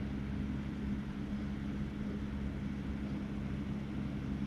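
Steady low mechanical hum made of a few constant low tones, unchanging throughout, with no distinct handling clicks.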